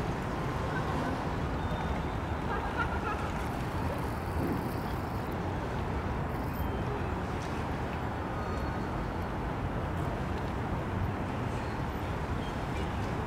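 Steady outdoor city ambience: a low, even rumble of distant traffic.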